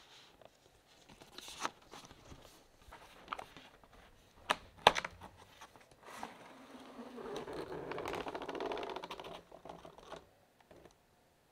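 Cardboard laptop box being handled: scattered light taps and one sharp knock about five seconds in, then about four seconds of cardboard rubbing against cardboard as the outer sleeve slides off the inner box.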